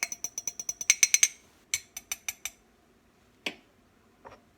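Eggs being whisked with a utensil in a ceramic egg cooker, a quick run of clinks against the ceramic at about nine a second that slows and stops about two and a half seconds in, followed by two single clinks.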